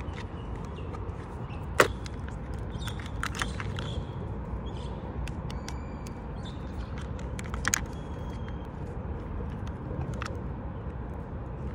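Plastic clicks and knocks from handling a toy RC car's body shell and battery pack, with a few sharp clicks, the loudest about two seconds in, over a steady low background rumble.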